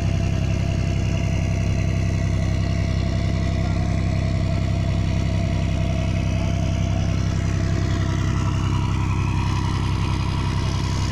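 Fishing boat's inboard engine running steadily at a constant speed: a low, even drone.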